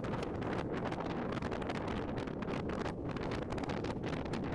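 Wind buffeting the microphone: a steady rushing noise with rapid, gusty flutter.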